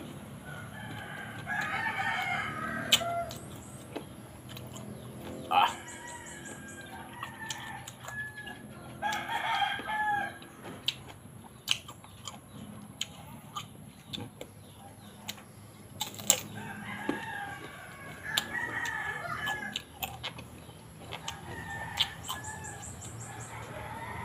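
A rooster crowing several times, each crow about two seconds long and several seconds apart. Between and over the crows come sharp crunches and mouth clicks from biting and chewing raw green mango.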